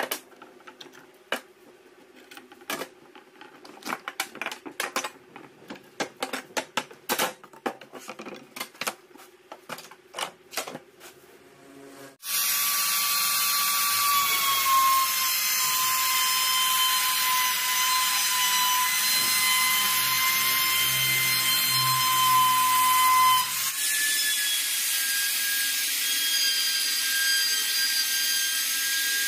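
Bar clamps and pine boards being handled and tightened, a run of scattered clicks and knocks. About twelve seconds in, an electric trim router starts abruptly and runs with a steady high whine while it is guided along the clamped boards. Its pitch sinks slightly, then steps higher about twenty-three seconds in.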